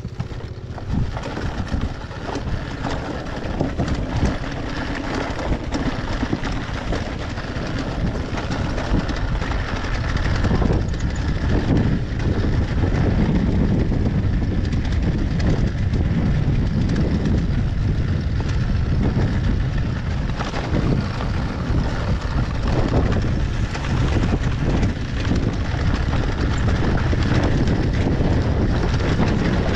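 Dirt bike engine running at idle, with wind buffeting the microphone; it gets somewhat louder about ten seconds in.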